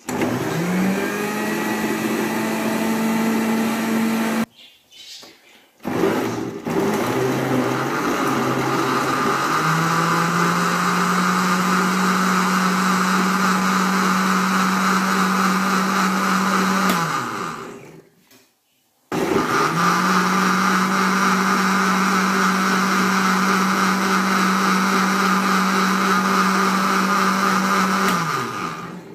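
National electric blender running in three runs with short stops between, each run winding down at its end. The motor's hum starts lower and steps up in pitch partway through the second run. It is blending watermelon chunks into a smooth purée.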